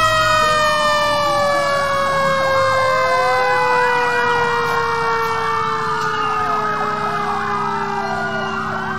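Fire engine siren sounding: one long tone that slowly falls in pitch throughout, with a faster wail rising and falling over it.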